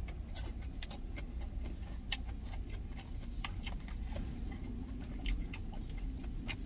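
Close-up eating sounds: chewing, with many small irregular clicks, over a steady low rumble.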